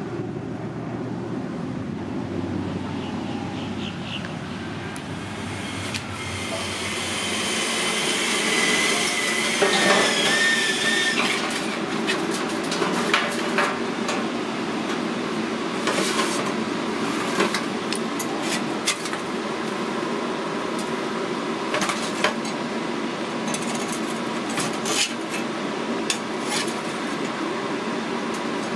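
A metal spatula scraping and clinking against a stainless steel pan and the smoker's grill racks as smoked pork is lifted out: scattered sharp clinks over a steady hum, with a brief high scrape about ten seconds in.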